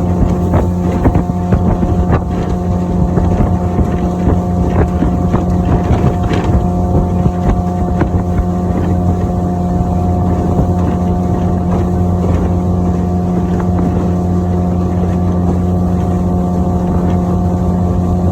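Outboard motor of a small motorboat running at a steady high speed, its pitch holding constant, with wind noise on the microphone.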